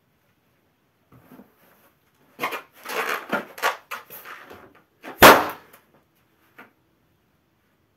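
A black latex balloon rubs and squeaks under bare feet as it is squashed, then bursts with one sharp, loud pop about five seconds in.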